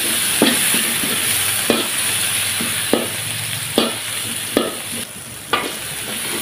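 Ground spice paste with bay leaves and lemongrass sizzling in hot oil in a wok, sautéed until fragrant, while a metal spatula stirs it and scrapes and clacks against the pan roughly once a second.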